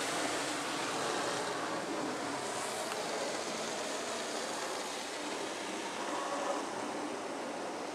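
Christ rollover car wash gantry working over the car, heard from inside the cabin: a steady rush of water spray and machinery that fades slowly.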